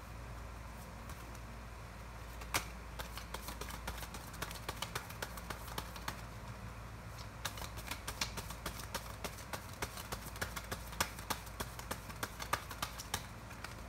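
Tarot cards being shuffled by hand: quick, irregular card clicks that start a couple of seconds in and get busier from about halfway through.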